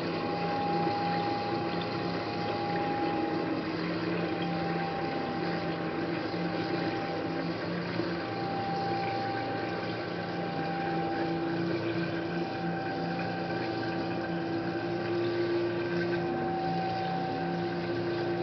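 A small electric water pump running with a steady hum and a faint whine, along with swirling water, as it drives a water vortex in a glass column.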